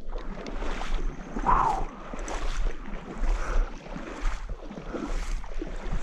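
Water sloshing and splashing over and over as someone moves through shallow pond water, with wind on the microphone.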